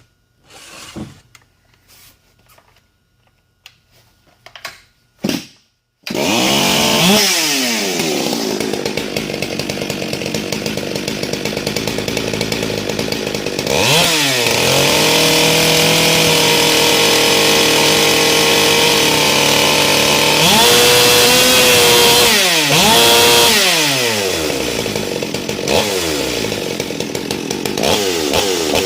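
Modified Stihl MS 440 (044) Magnum two-stroke chainsaw with a decked, re-ported cylinder, advanced timing and a custom buckshot muffler. A few short starter pulls, then it starts about six seconds in and runs loud, revved up and down several times between stretches at a steady speed.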